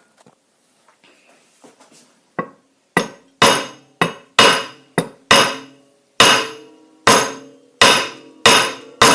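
A giant gobstopper being struck hard again and again to smash it open: about a dozen sharp, ringing blows, roughly one or two a second, starting a couple of seconds in. The gobstopper is rock solid and does not break.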